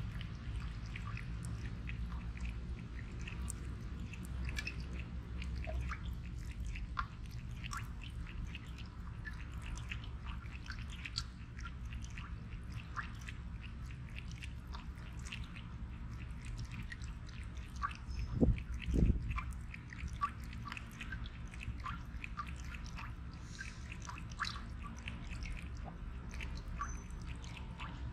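A cat lapping water from a thin stream out of a faucet: a quick run of small wet tongue clicks. Two low thuds about two-thirds of the way through.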